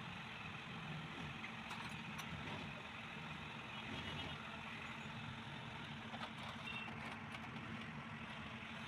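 Steady low engine drone with a constant hum, like a vehicle engine idling nearby, with a few faint clicks.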